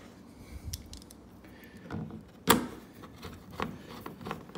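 Phillips screwdriver turning screws into a plastic paddle holder on a kayak hull: light clicks and ticks, with one sharp knock about two and a half seconds in.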